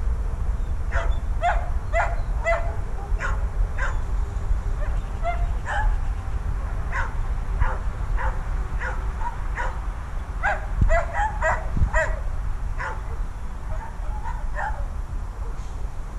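A dog barking and yelping over and over in short high calls, about one or two a second, coming faster for a couple of seconds in the middle. These are the distress calls of a dog in separation anxiety.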